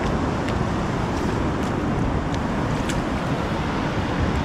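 Steady rumble of wind buffeting the microphone over the wash of surf, with a few faint ticks.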